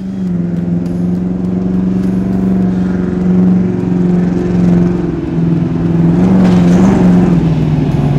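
Ultra4 off-road race buggy's engine running at steady high revs as it drives around on asphalt, the revs settling lower near the end.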